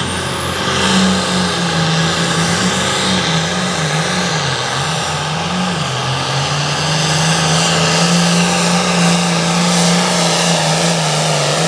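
Hot farm pulling tractor's engine running flat out under load during a pull down the track; its pitch wavers up and down for the first several seconds, then holds steady to the end.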